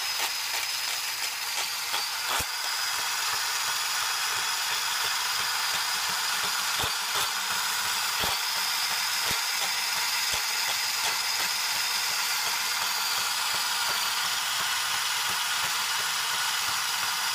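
DeWALT DCS371 20V cordless compact bandsaw running at its single fixed speed while cutting through a rusty, painted steel plate: a steady, high-pitched hiss of blade on metal, with a few sharp ticks in the first half.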